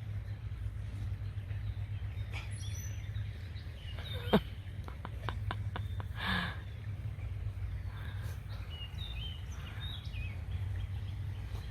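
Outdoor ambience: a steady low rumble with birds chirping now and then. About four seconds in there is a sharp loud click, followed by a quick run of fainter clicks and a short burst of noise.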